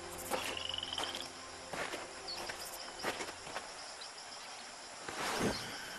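Footsteps on grass, with jungle ambience of steady insect chirring. A single short bird whistle rises slightly about half a second in.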